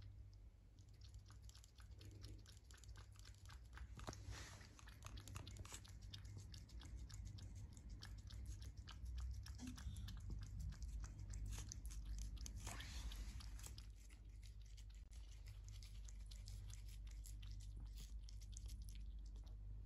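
Cat eating wet food from a tray: many quick, soft chewing and licking clicks, busiest in the middle, over a low steady hum.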